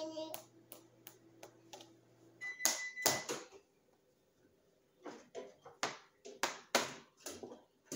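A toddler tapping and banging a small utensil and her hands on a plastic high chair tray: scattered light clicks at first, a loud clatter of knocks about two and a half seconds in, then after a short pause a run of knocks.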